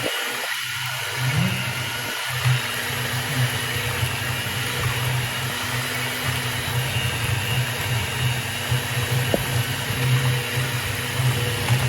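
Electric kitchen mixer running steadily, with a low motor hum and a hiss, mixing the cake batter.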